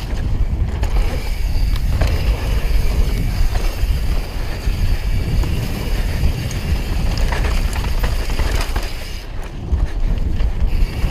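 Downhill mountain bike descending a dirt trail at speed: a continuous rumble of tyres on dirt and the bike rattling, with scattered clicks, under heavy wind on the microphone.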